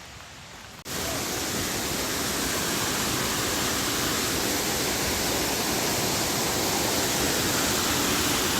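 A steady, loud rushing noise that cuts in abruptly about a second in and holds, growing slightly louder.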